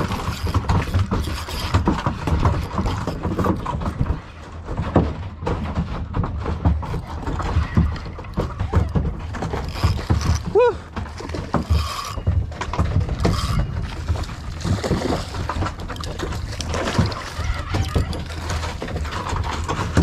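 Spinning reel being cranked during a fight with a hooked mahi, over a low, uneven rumble. A short pitched squeak comes about halfway through.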